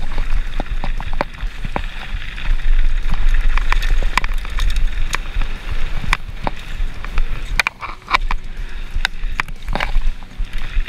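Mountain bike ridden fast on a rough trail, heard through an action camera: wind buffets the microphone with a low rumble while the tyres and bike rattle, with many sharp clicks and knocks over the ground. The rumble eases briefly about eight seconds in.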